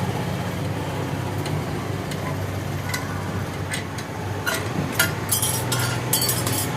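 Metal parts and tools clinking and scraping during shock absorber repair work, a few sharp clicks followed by a rapid cluster of bright metallic rattles near the end, over a steady low hum like vehicle traffic.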